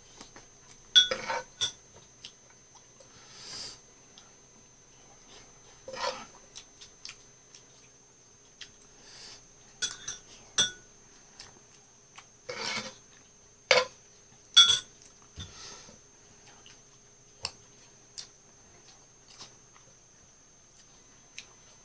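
Metal spoon clinking and scraping against a nonstick frying pan as fried rice is scooped up, in a dozen or so sharp, irregular clinks with softer scrapes between them.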